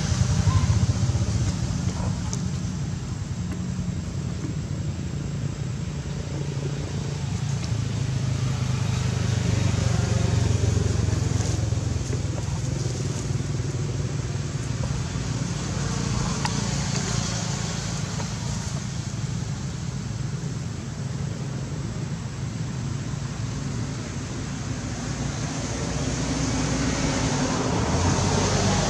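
Rumble of passing road traffic, motor vehicles swelling and fading past about three times.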